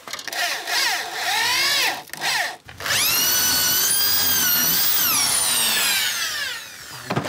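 Electric motor of a power tool starting briefly and dropping away, then starting again about three seconds in: it spins up quickly to a high whine, holds for about two seconds and winds down with falling pitch.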